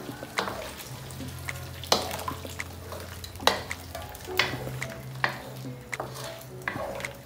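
A wooden spatula stirring diced pork and freshly added pig's blood in a steel wok for dinuguan, with a steady sizzle under it. The spatula knocks and scrapes against the wok about once a second.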